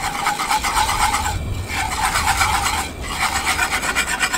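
Wire whisk beating chocolate cake batter fast against the bottom of a stainless steel pan, a rapid run of scraping strokes. It pauses briefly about one and a half and three seconds in.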